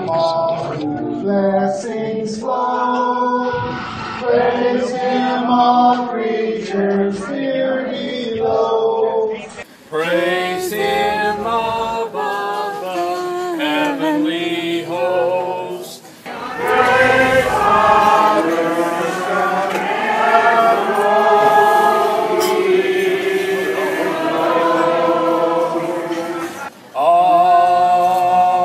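A group of people singing a worship song a cappella. The singing breaks off abruptly and starts again three times.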